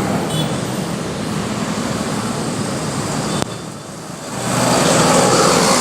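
Large bus's diesel engine running with traffic noise. About three and a half seconds in there is a sudden click and drop, then a louder engine noise swells up near the end.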